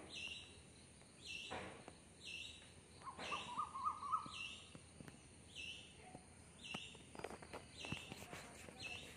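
A bird calling in the background, one short high note about once a second, with a brief warbling call about three seconds in. Faint rustles of fingers working through hair.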